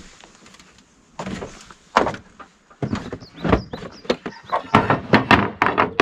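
Clunks, knocks and clatter of camping gear and plastic containers being handled and loaded into a pickup truck bed, with door-like thunks. The knocks are sparse at first and come quicker and sharper through the second half.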